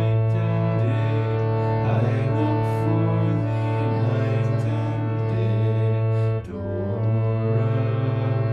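Instrumental music: a sustained low drone with slow, held melody notes over it, briefly dipping about six and a half seconds in.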